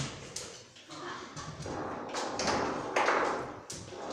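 Bonzini table football in play: irregular sharp knocks and clacks of the ball struck by the figures and hitting the table walls and rods, about eight in four seconds, echoing in a large tiled hall.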